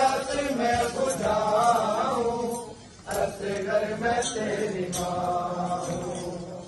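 A man chanting a noha, a Shia Muharram mourning lament, in long sung phrases with a short break about three seconds in. A few sharp clicks are heard over the chant.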